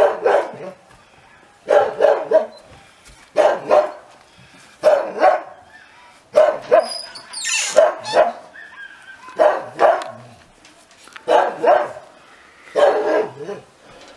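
A dog barking over and over, a bark or a quick double bark about every second and a half.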